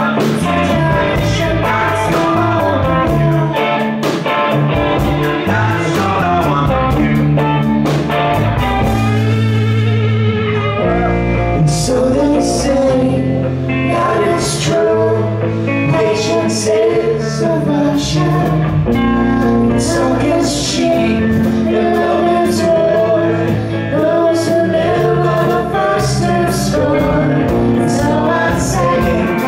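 Live rock band playing: a woman sings lead over electric guitar, keyboard, bass and drums. The cymbals drop out for about two seconds around ten seconds in, then the full band comes back in.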